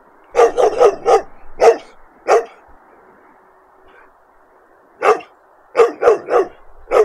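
A dog barking in two runs: about six quick barks in the first couple of seconds, then a pause, then about five more near the end.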